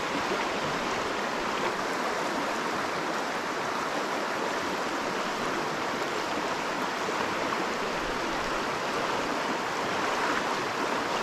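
Small mountain stream rushing over rocks: a steady rush of moving water.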